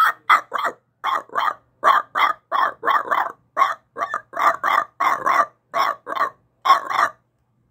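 A man's voice imitating a cartoon dog's barking: about twenty short barks, often in quick twos and threes, stopping shortly before the end.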